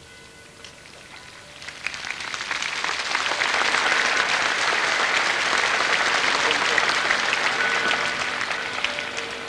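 Large crowd applauding, starting about two seconds in, swelling to a steady peak and beginning to die away near the end.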